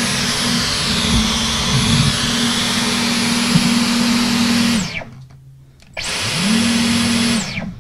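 Dyson V15 Detect cordless stick vacuum with its Slim Fluffy cleaner head running at full suction, a steady motor hum with a high whine. About five seconds in the motor is released and winds down with falling pitch. It spins back up a second later and winds down again just before the end.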